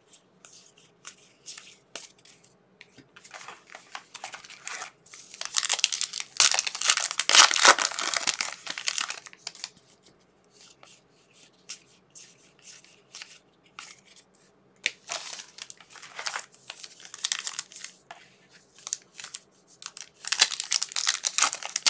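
A trading-card pack wrapper being torn open and crinkled, with cards handled in between. The loudest stretches of tearing and crinkling come about six to nine seconds in and again near the end.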